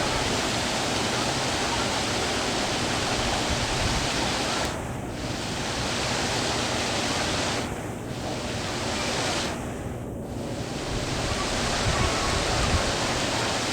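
Steady rushing of falling water, as from a waterfall or water feature, dipping briefly in level a few times.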